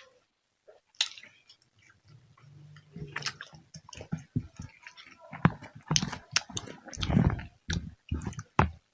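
Close-miked chewing and crunching of food in the mouth. A few clicks come first; about three seconds in, a dense run of sharp crunches begins and grows louder.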